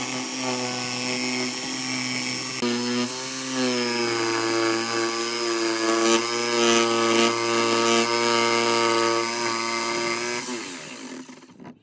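Electric jigsaw cutting a curve through a thick wooden tabletop: a steady motor whine with the blade's sawing noise. The pitch dips briefly a few seconds in, then the saw winds down and stops near the end.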